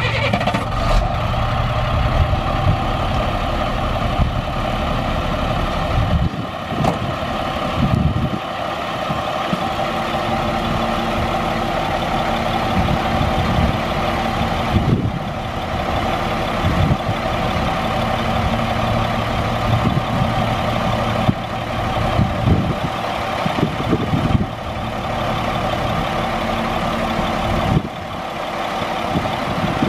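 Rollback tow truck's engine running with its hydraulic pump engaged, a steady whine over the engine as the flatbed is tilted and slid back, with occasional clunks from the bed and its rails.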